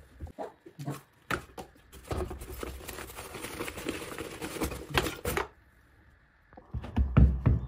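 Packaging and plastic parts being handled during an unboxing: scattered clicks and knocks, then about three seconds of rustling and scraping, and heavy thumps near the end.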